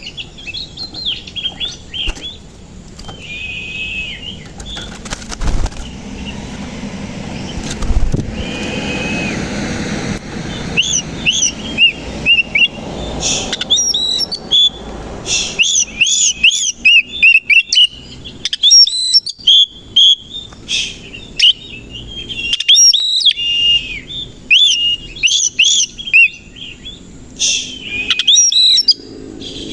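Oriental magpie-robin (kacer koci) singing: repeated high, arching whistled notes, sparse at first, then a fast, dense run of varied notes through the second half.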